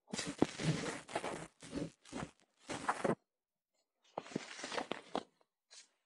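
Irregular bursts of rustling and crunching, with a few sharp clicks, over the first three seconds and again about four seconds in.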